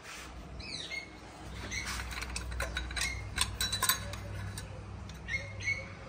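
Small birds chirping in short calls near the start and again near the end. A few light clicks and taps come in the middle as the tractor's engine-oil dipstick is handled, over a low steady hum.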